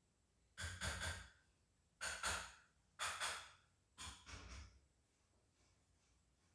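A person's breathy exhalations, like sighs: four short puffs of breath about a second apart.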